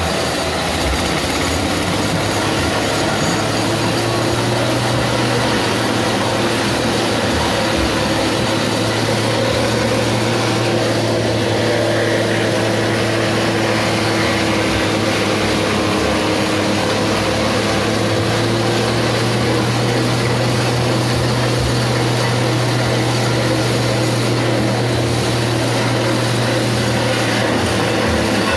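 Forage chopper machine running steadily at speed, a constant low drone with the rushing, rattling noise of green fodder being fed in and shredded.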